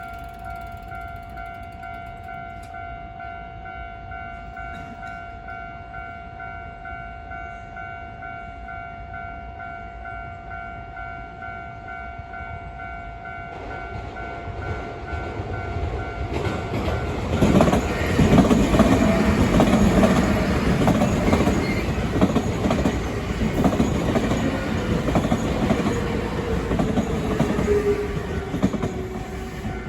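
Japanese level-crossing warning bell ringing steadily with a pulsing two-tone ring. From about fourteen seconds in, a Nankai Koya Line electric train comes over the crossing, its wheels and running gear growing loud and clattering. A falling whine follows near the end.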